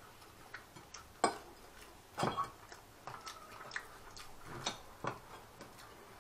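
Metal knife and fork clicking and scraping against a plate while a roast goose is carved. The clicks are irregular, the loudest about a second in and a small cluster just after two seconds.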